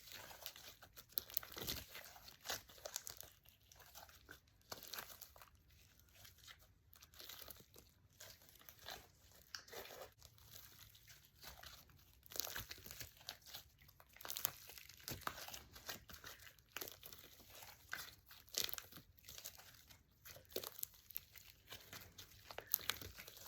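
Hands squishing, stretching and poking slime, a Scoopi milk tea slime, making soft, irregular crackles and small clicking pops.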